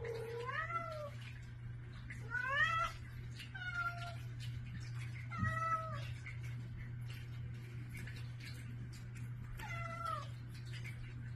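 A domestic cat meowing five times in short, pitched calls, some sliding upward: a cat begging for its morning food. A steady low hum runs underneath.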